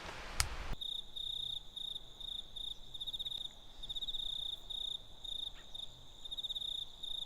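Crickets chirping in a steady, high, pulsing trill that starts abruptly just under a second in, after a sharp click and a hiss that cut off suddenly.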